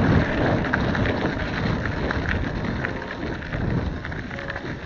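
Wind buffeting the microphone of a camera riding along on a moving bicycle: a steady low rumble, with scattered faint clicks over it.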